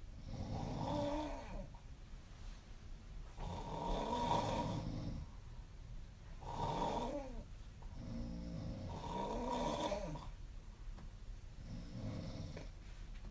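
A young woman snoring in her sleep: five snores, one about every two and a half to three seconds, each with a pitch that rises and then falls, with quiet breathing between them.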